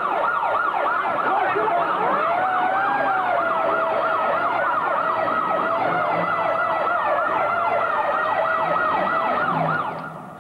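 Emergency vehicle siren yelping fast and steadily, at about four sweeps a second, with a second, slower wavering siren tone over it from about a second and a half in. Both cut off abruptly near the end.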